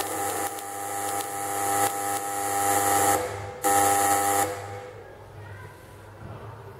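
Tesla coil firing, its spark discharge to a nearby metal rod making a loud, harsh buzz with a hiss. It cuts off about three seconds in, fires again for about a second, then stops, leaving a faint low hum.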